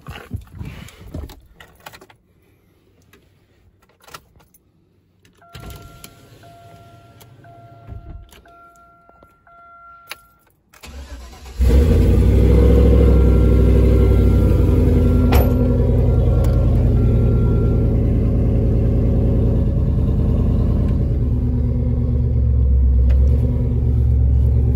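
A Chevrolet Silverado pickup's dashboard chime beeps repeatedly. Then the engine cranks briefly and catches about twelve seconds in, running loud and steady at idle to the end, with the chime beeping again for a few seconds after it starts.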